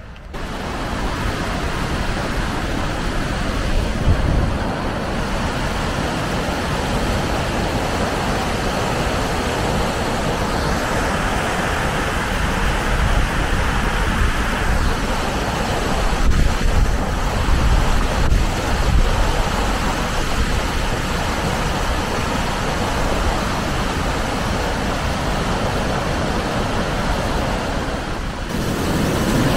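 Steady rush of a river waterfall tumbling over rocks, with irregular low rumbles underneath.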